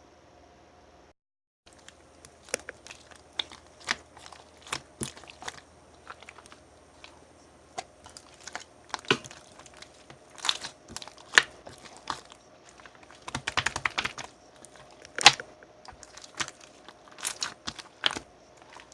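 Pink slime packed with crunchy pearl beads being squeezed and pressed by hand, giving irregular crunchy clicks and crackles. The sound drops out briefly about a second in.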